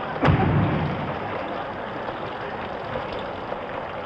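A front door shuts with a thump, followed by a steady hiss of falling rain.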